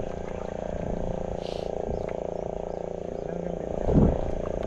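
A small fishing boat's motor idling with a steady, rhythmic chug, and one brief louder sound about four seconds in.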